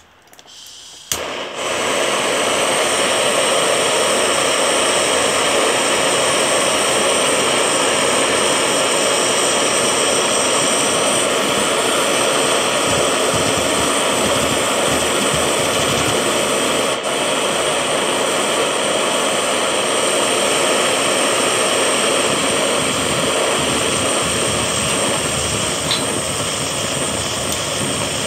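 Handheld butane torch lit with a sharp click about a second in, then its flame running with a loud, steady roar as it heats scrap silver in a ceramic crucible for melting.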